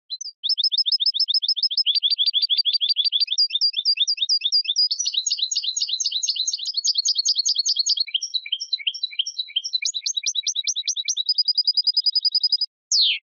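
European goldfinch singing: a long, fast stream of twittering trills, about ten notes a second, that switches between phrases several times. It ends with a short downward-sliding note.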